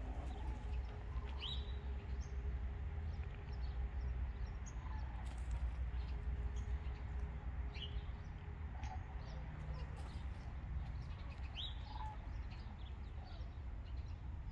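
Small birds chirping now and then: a few short, high chirps, about a second and a half in, near eight seconds and near twelve seconds, with fainter ones between, over a steady low rumble.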